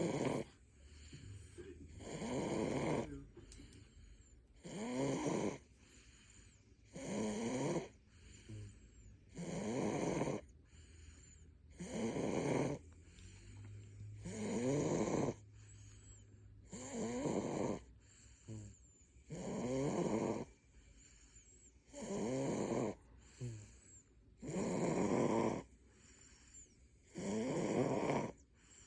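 Six-month-old baby snoring while sound asleep, one snore about every two and a half seconds in a steady rhythm.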